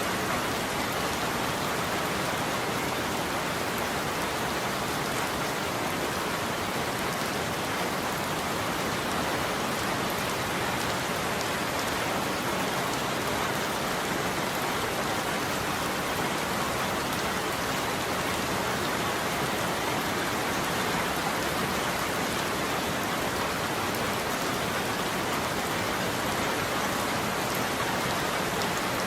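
Steady heavy rain falling on a roof, an even, unbroken patter with no thunder.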